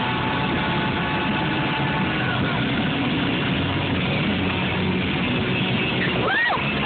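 Music playing on the car radio over the steady wind and road noise of a vehicle driving fast. Near the end there is a short pitched sound that rises and then falls.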